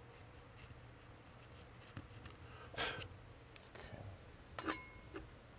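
A wood chisel paring hardened glue off a wooden rifle stock: two short scrapes, about three seconds and about four and a half seconds in, with a few light clicks between.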